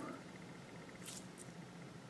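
Faint brief squishing, twice a little past a second in, from a hand squeezing a sticky, liquid-filled rubber squishy ball, over a low steady room tone.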